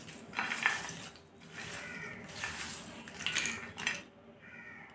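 Crisp fried kucho nimki (small diamond-shaped fried dough snacks) being scooped and crushed by hand on a glass plate: dry crackling and rustling in several handfuls, the sound of their crispness. It fades out near the end.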